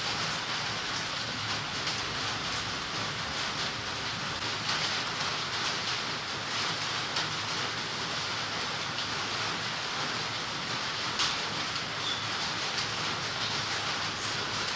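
Steady rain falling on tree foliage: an even hiss with scattered ticks of single drops.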